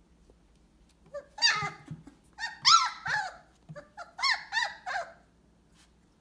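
Young Weimaraner puppy whimpering: a run of short high cries that rise and fall in pitch, in three bursts starting about a second in.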